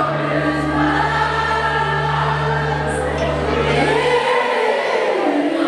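A group of voices singing together over musical backing with steady low bass notes. The bass drops out about four seconds in while the singing holds a long note.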